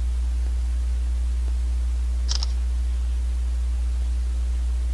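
A smartphone camera shutter sounds once as a short double click about two seconds in. Under it runs a steady low electrical hum.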